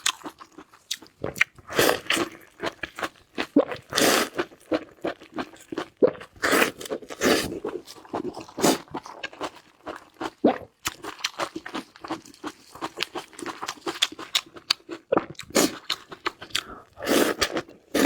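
A person chewing and crunching food close to the microphone, in an irregular run of loud crunchy bites and wet chewing sounds.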